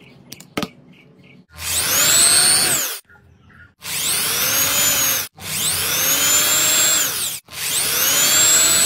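A small electric hand drill with a twist bit boring holes in a plastic housing, run in four short bursts, its high whine rising as it spins up and falling as it stops each time. Before the drilling, a couple of small clicks from a wire stripper.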